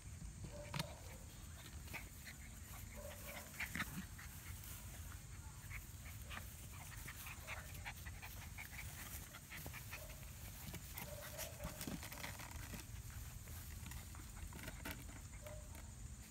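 36-day-old golden retriever puppies play-fighting, giving short faint whimpers and yips now and then over small rustles and knocks, with a low steady rumble underneath.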